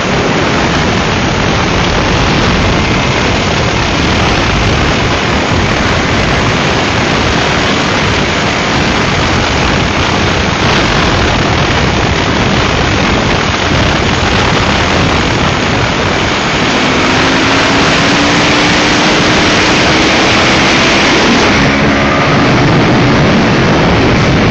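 Motorcycle riding at speed: loud wind rush over an on-bike camera microphone, with the engine running underneath. Past the middle, an engine note rises slowly for a few seconds as the bike accelerates.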